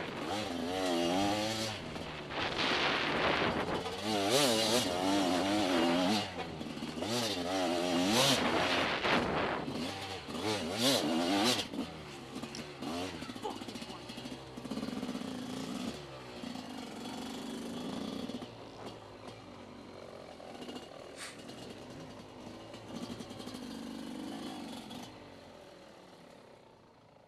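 TM Racing enduro motorcycle engine under hard riding, its revs rising and falling rapidly, for about twelve seconds. It then runs at low revs, more quietly, before fading out near the end.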